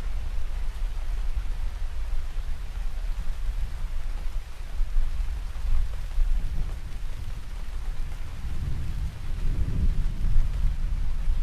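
Steady rain with low, rolling thunder underneath. The rumble swells about six seconds in and again near the end.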